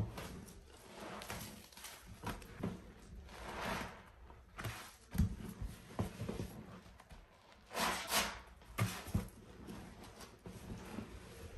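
Soaked sponges squeezed and pressed by bare hands in thick, foamy pine paste suds. Irregular wet squelches, loudest about eight seconds in, with a few short low thumps.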